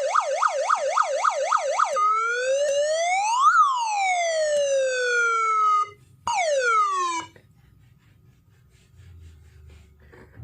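Electronic siren tone generated by an ATmega8 microcontroller circuit: a fast warbling yelp, about three sweeps a second, for two seconds, then a slow wail that rises and falls. It cuts off, gives one short falling sweep and stops about seven seconds in, leaving a faint low hum.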